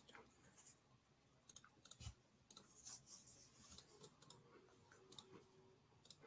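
Near silence: faint room tone with scattered faint clicks.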